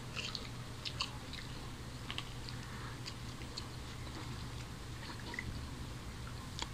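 Close-up chewing and biting of crisp fried moghlai paratha, with scattered soft crunches and small wet mouth clicks.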